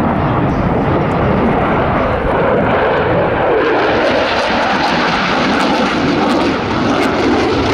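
Twin-engine delta-wing canard fighter jet flying a display manoeuvre overhead, its engines giving a loud, steady jet roar.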